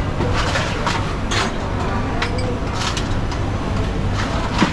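Busy hawker-centre ambience: a murmur of voices over a steady low hum, with scattered clinks and clacks of dishes and cutlery, and one sharp clack near the end.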